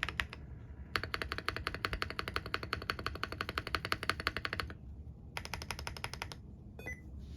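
Fast typing on a mechanical keyboard with Fantasy Virus switches under tall SA-style (MG profile) keycaps: rapid keystrokes in three bursts with short pauses between.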